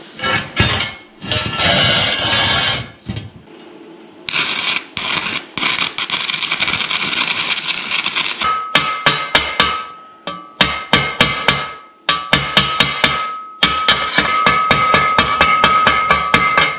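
Stick (arc) welding crackling and hissing in uneven bursts through the first half. Then a chipping hammer knocks the slag off the fresh weld, several quick strikes a second in short runs, the steel plate ringing with a steady tone under the blows.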